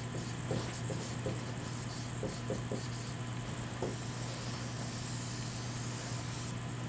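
Dry-erase marker writing on a whiteboard: short faint squeaks and scratches in the first few seconds, over a steady low hum.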